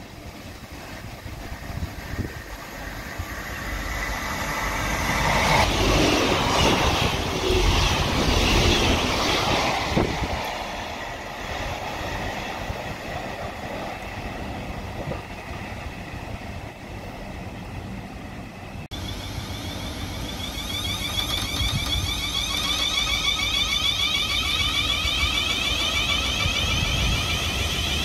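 South Western Railway electric multiple unit running past on the track, its wheel and rail noise building to a peak about six to ten seconds in, then fading. Near the end a train moves slowly past close by with a steady, repeating rising high-pitched whine from its traction equipment.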